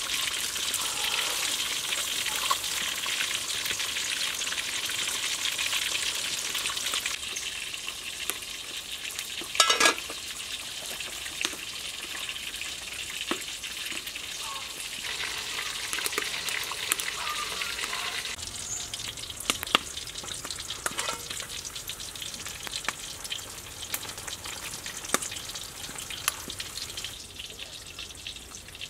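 Pot of fish soup with pickled spinach at a rolling boil: a steady bubbling hiss that drops in level about seven seconds in. A single clatter near ten seconds in and scattered small clicks follow.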